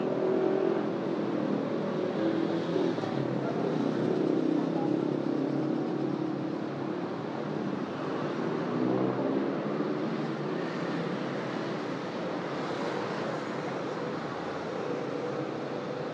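Steady city street traffic: vehicles passing with engine and tyre noise, gradually getting quieter toward the end.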